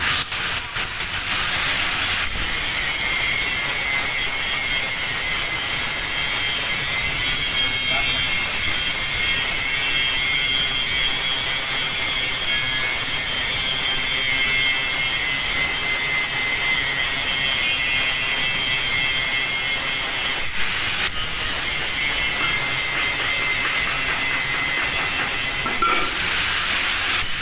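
Angle grinder grinding steel: a steady harsh grinding noise with a high whine. The grinder stops and spins back up with a rising whine a few times.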